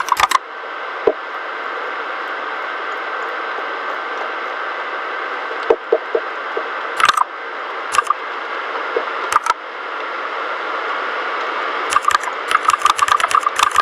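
Keystrokes on a mechanical keyboard with red linear switches: a few separate key presses, then a quick run of typing near the end, over a steady hiss.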